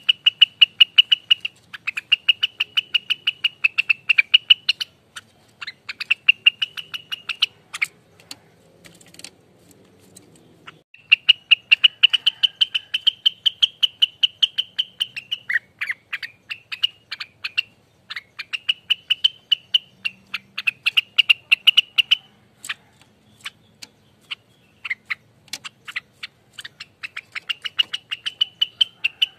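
Rengganis songbird singing in long runs of rapid, sharp repeated notes ('ropelan'), each run lasting a few seconds, with short breaks between runs and a longer pause around a third of the way in.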